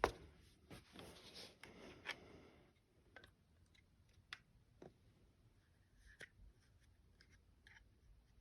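Glock 29 pistol parts being handled during takedown or reassembly: a sharp click at the start, a couple of seconds of sliding and scraping, then a scattering of small light clicks.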